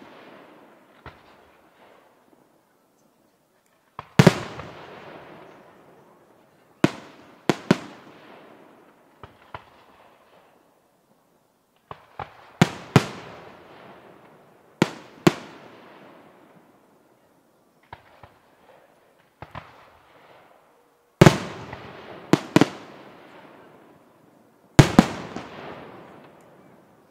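Aerial firework shells bursting, loud bangs often in pairs every few seconds, each trailing off in a long echoing rumble, with smaller pops in between.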